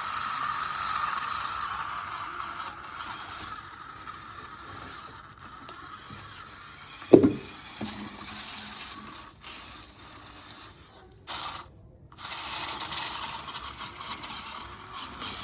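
Small geared electric motor of a homemade RC tractor whirring through its plastic gearbox, with one sharp thump about seven seconds in and a short break near twelve seconds before the whirring starts again.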